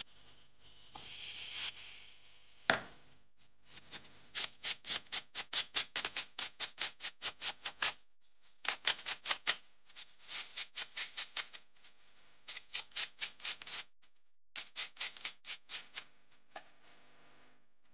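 Hand-sanding a small model part on an abrasive pad: quick back-and-forth scratchy strokes, about four a second, in several runs with short pauses between them. There is one sharp click about three seconds in.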